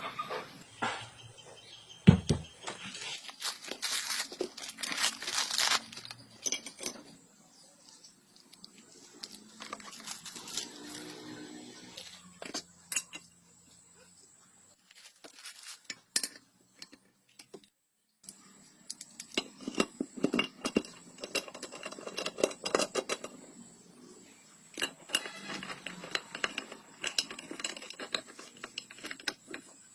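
Irregular clinks, knocks and rustling of metal parts and tools being handled during motorcycle engine work, with a sharp knock about two seconds in and a quiet lull midway.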